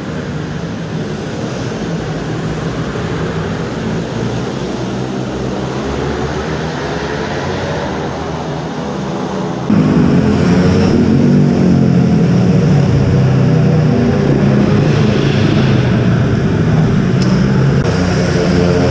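Mini bike engine running on track, its pitch rising and falling as the rider works the throttle. About halfway through it abruptly gets louder.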